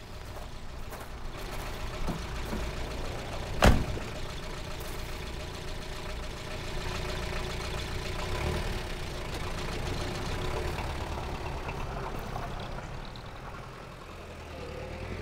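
Diesel engine of a black London taxi idling, with a car door slammed shut about three and a half seconds in. The engine swells a little about halfway through as the cab moves off.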